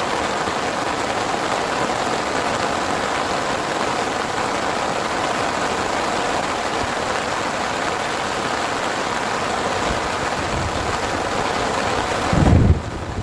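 Steady heavy rain. Near the end, a gust of wind buffets the microphone with a loud low rumble.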